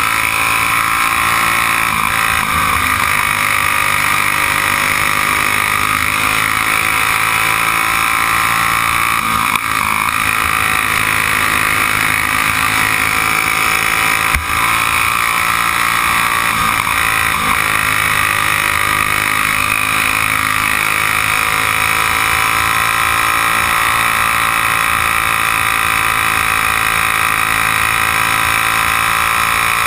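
Single-cylinder Briggs & Stratton Raptor kart engine running flat out onboard during a race, its pitch rising and falling gently through the corners. One sharp knock about 14 seconds in.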